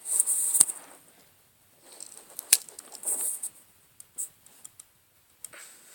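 Victorinox Swiss Army knife being handled as its small blade is prried open: scraping and rubbing with a few sharp metal clicks, the sharpest about two and a half seconds in.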